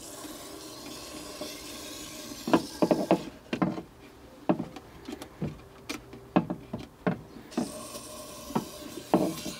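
Aerosol can of gun grease hissing as it sprays through a thin extension tube into a car's chassis rail. It hisses for about three seconds and stops, a string of short knocks and taps follows, then it hisses again near the end.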